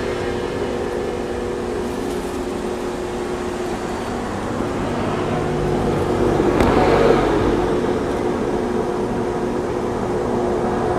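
Steady hum of a Kumamoto Electric Railway 5000 series electric train standing at the platform, with a louder rush of noise about six to seven seconds in.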